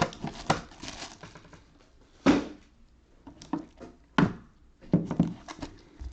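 Foil-wrapped trading-card packs crinkling as they are handled, with a few light knocks about two, four and five seconds in.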